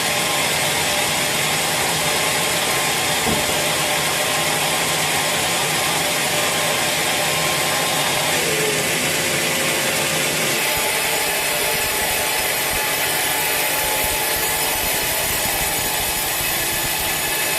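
Sawmill saw cutting lengthwise through a large teak log: a loud, steady, hissing cut. The sound shifts a little over halfway through, taking on more low rumble.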